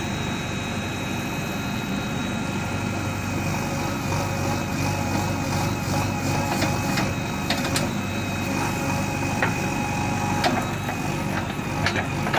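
JCB backhoe loader's diesel engine running steadily, with several short sharp knocks in the second half.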